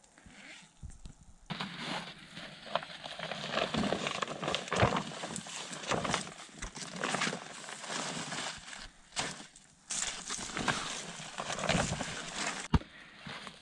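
Plastic tarpaulin rustling and crinkling as it is pulled out and spread over dry grass, in irregular crackly bursts starting about a second and a half in. A single sharp click near the end.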